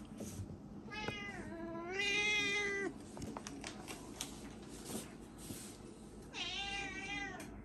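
Domestic cat meowing: a call about a second in, a louder drawn-out meow right after it, and another near the end.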